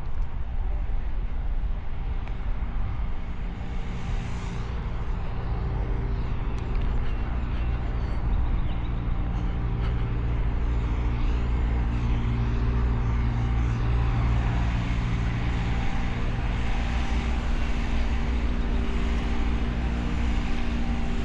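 A vehicle engine running at a steady speed, with a constant low drone and road and wind noise.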